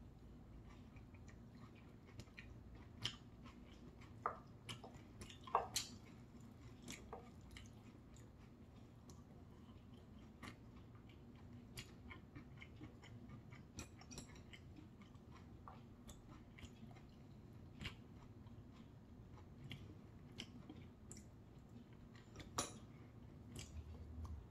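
Quiet chewing of a mouthful of quinoa rice with soybean-paste stew and chives: a string of faint wet mouth clicks and smacks, with a few sharper clicks scattered through.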